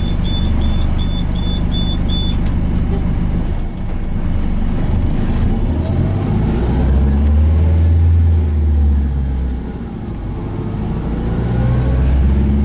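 Cabin noise inside a Volvo B5LH hybrid double-decker bus under way: a steady low drive rumble with a faint rising whine as it gathers speed, and the rumble swells loud for a couple of seconds past the middle and again near the end. In the first two seconds, a quick run of high beeps, about four a second.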